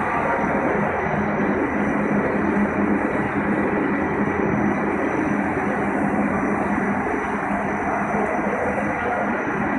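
Pet food production line machinery running: a steady, even mechanical din with a low hum and a faint high whine.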